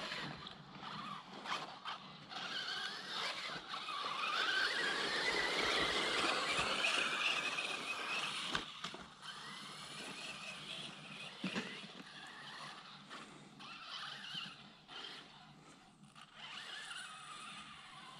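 Traxxas Slash 4x4 RC truck's electric motor and geartrain whining, the pitch rising as it speeds up a few seconds in, over tyre noise on dirt. It then eases off, with a couple of sharp knocks and a quieter whine.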